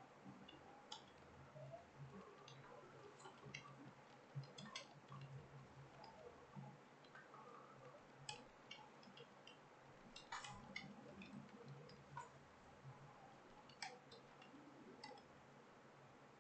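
Faint computer keyboard keystrokes: irregular clicks of someone typing.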